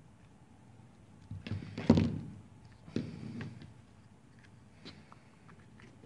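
Screwdriver levering up the top cover of a fishing reel's body, giving a few sharp knocks and clicks. The loudest comes about two seconds in, with smaller ones around three seconds, as the cover works loose.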